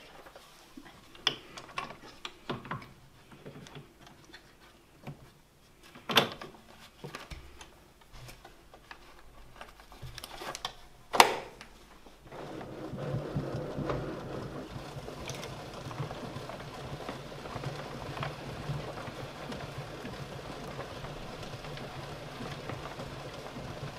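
A paper roll being fitted into a pianola's spool box: scattered clicks and knocks, two of them sharp, about six and eleven seconds in. From about halfway, the pianola's pedal-pumped roll mechanism runs with a steady hiss and low hum as the roll winds on, before any notes play.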